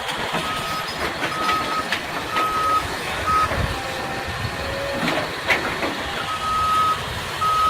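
Heavy-equipment backup alarm beeping about once a second, with a pause of a few seconds in the middle. Under it are diesel machinery rumble and a few metallic clanks.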